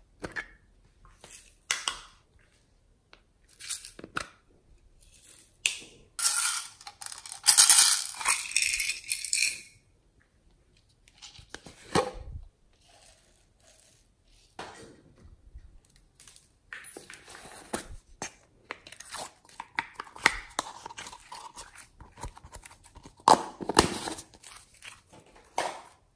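Glossy slime and its plastic tubs being handled. There are scattered clicks and sticky crackling as slime is tipped out of a tub and squeezed and stretched by hand. Two longer, louder bursts of crackling come about a quarter of the way in and near the end.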